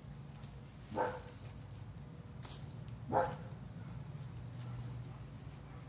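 A dog barking twice, faint single barks about two seconds apart, over a steady low background hum.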